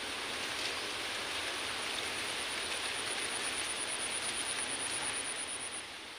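Outdoor paddy-field ambience: a steady hiss with a high, fast-pulsing tone from about two seconds in. It begins to fade out near the end.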